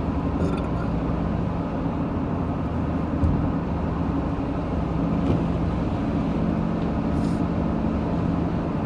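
Steady drone of a car driving, engine and road noise heard from inside the cabin, with a short thump about three seconds in and a couple of other brief faint sounds.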